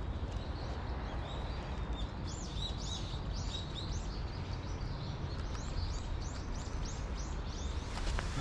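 A run of high, bird-like chirps, two or three a second, starting about two seconds in and stopping near the end, over a steady low rumble of city background noise.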